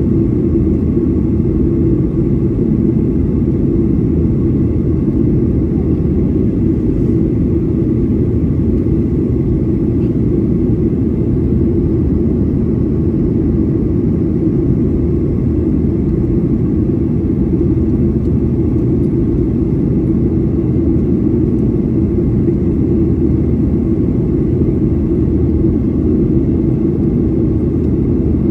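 Steady cabin noise inside a Boeing 737-800 in flight, heard at a window seat over the wing: its CFM56-7B turbofan engines and the airflow make an unbroken low noise, with a faint steady high tone above it.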